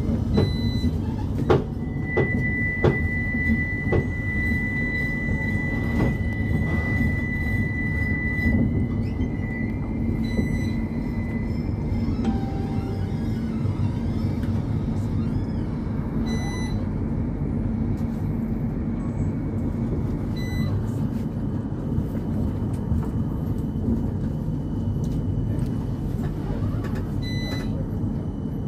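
CAF Urbos tram running, heard from inside at the front: a steady low rumble of running gear on the rails, with a few clunks over the points in the first seconds. A high steady squeal of the wheels on the curve starts about two seconds in and fades away by the time the track straightens.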